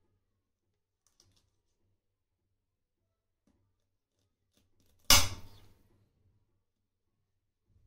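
A kitchen knife knocks once, sharply, on a chopping board about five seconds in, the sound dying away within under a second. Otherwise near silence with a few faint ticks.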